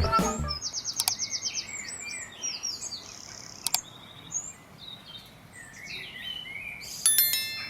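Several birds chirping and calling over faint outdoor background noise, with a rapid trill about a second in.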